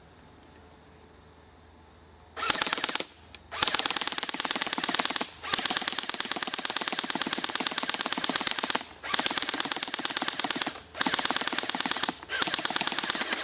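Airsoft Thompson submachine-gun replica firing rapid full-auto bursts of BBs: about six bursts of half a second to three seconds each, with short gaps, starting a couple of seconds in.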